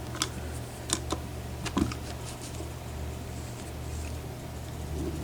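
Lock pick and tension wrench working the pins of a pin-tumbler challenge lock, giving a few faint clicks about a second in and again just under two seconds in, over a steady low hum.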